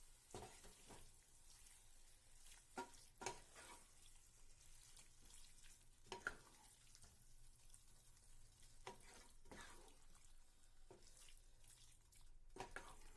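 Faint stirring of chicken pieces in onion-tomato masala in a frying pan: a spoon scraping and knocking softly against the pan a few times over a quiet sizzle.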